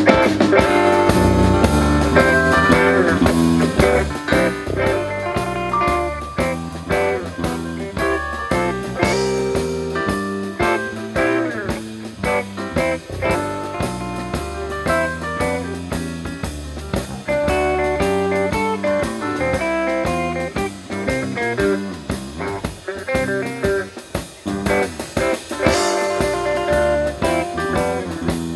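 Live blues band playing: electric guitar, bass guitar, drum kit and keyboard.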